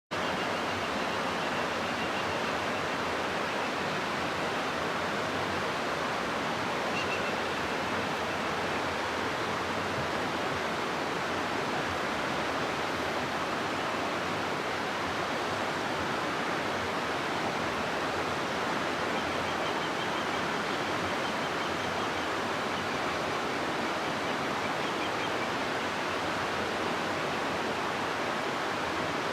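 River water rushing steadily through a rocky gorge: a constant, even hiss of flowing water that never changes in level.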